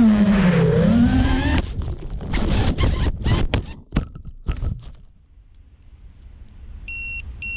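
FPV quadcopter's T-Motor Pacer 2207 brushless motors whining, the pitch dipping and rising again, then cutting out about a second and a half in amid a run of knocks and scrapes as the quad comes down and stops. It goes quiet, and a few short electronic beeps sound near the end.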